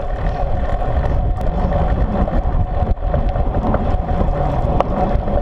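Wind buffeting the microphone of a camera mounted on a moving child's bicycle, a loud steady low rumble, with the bike rolling along and a faint steady hum over it.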